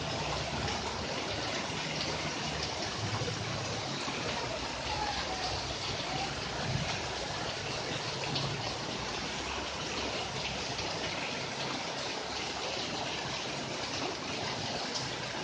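Steady splashing of falling water on garden plants and leaves, a continuous even rush with no breaks.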